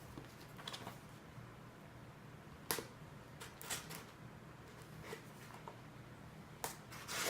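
Cardboard product box being cut open with an X-Acto hobby knife: faint, scattered sharp clicks and scrapes of the blade and the handled packaging, about half a dozen in all.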